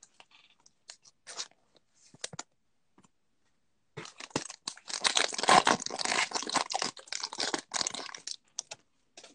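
A trading-card pack's foil wrapper being torn open and crinkled by hand. A few light rustles come first, then about four seconds of dense crinkling and tearing starting about four seconds in.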